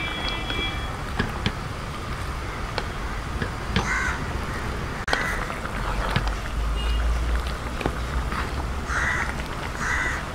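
A wooden spatula stirring a simmering chicken and vegetable curry in an aluminium pot, with a few light knocks against the pot. Crows caw in pairs, about four seconds in and again near the end.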